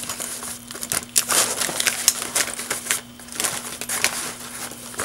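Pens and markers being pushed into a nylon mesh pocket of a fabric toiletry bag: irregular rustling and scraping of fabric, with light clicks of the plastic pen barrels knocking together.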